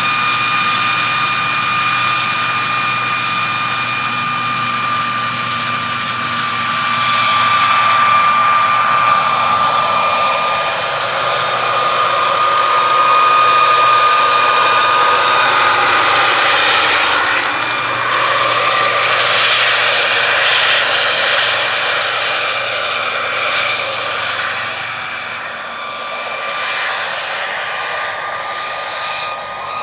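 Turbine-powered radio-controlled scale EC135 model helicopter running, with a steady high turbine whine over the rush of the spinning rotor. It swells louder through the middle and eases off near the end.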